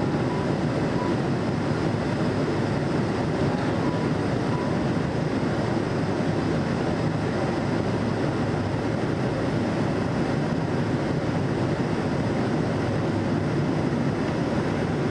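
Steady cabin noise inside a passenger aircraft on final approach to land: engine and rushing-air noise, an even low rumble throughout.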